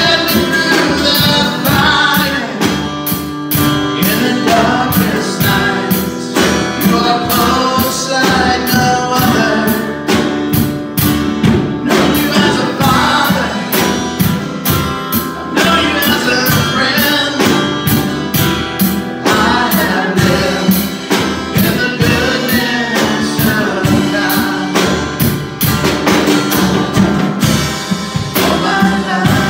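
Live church worship band playing a Christian worship song: voices singing over acoustic guitar and a drum kit, with cymbals struck on a steady beat.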